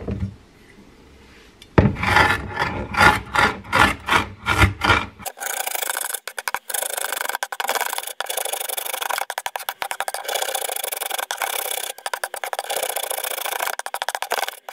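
Mezzaluna rocking blade chopping wild garlic stems and flowers on a wooden cutting board. About two seconds in come a dozen heavy, separate chops into the board, about three a second. From about five seconds in the chopping turns rapid and continuous, a crisp rasping run of fine clicks.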